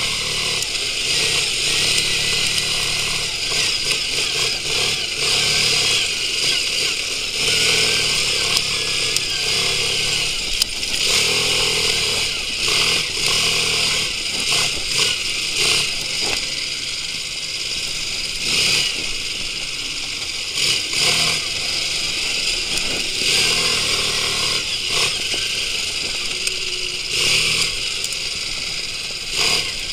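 Quad bike (ATV) engine running with the throttle opening and closing as it is ridden over rough grassland, heard close up from the handlebars, with frequent knocks and rattles from the bumps.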